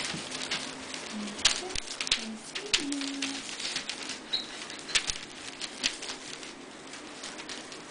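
Puppies moving about on newspaper in a wire pen: irregular taps, scratches and rustles, with a few short low whines in the first half.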